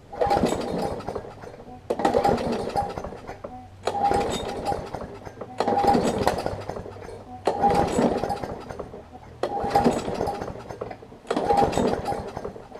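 Briggs & Stratton Classic push-mower engine being pull-started over and over: seven rattling pulls of the recoil starter, roughly two seconds apart, each turning the engine over without it catching. The owner puts the failure to fire down to a spark problem.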